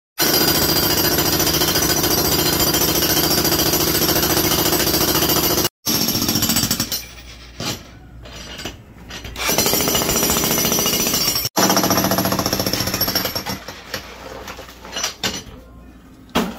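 Corded electric jackhammer with a chisel bit breaking up a concrete floor slab: loud, rapid, steady hammering in long runs that stop abruptly twice, then shorter bursts with pauses in the second half.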